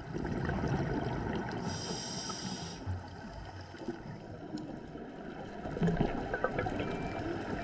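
Scuba regulator exhaust bubbles bubbling underwater, with a brief higher hiss about two seconds in and another spell of bubbling about six seconds in.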